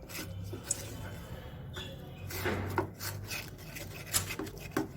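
A utensil stirring and scraping a thick mixture of ginger paste and jaggery in a pan on the stove, making irregular rasping strokes over a low steady hum.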